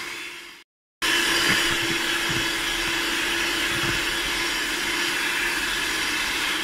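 Electric hand mixer running steadily at speed, its twin beaters whisking sweetened cream as it thickens into whipped cream. The motor sound cuts out abruptly for about half a second just under a second in, then comes straight back.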